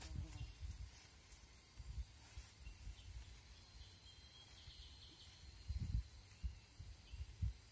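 Insects keep up a steady, high-pitched trill, with a few faint chirps in the middle. Several low thumps stand out over it, the loudest about six seconds in and near the end.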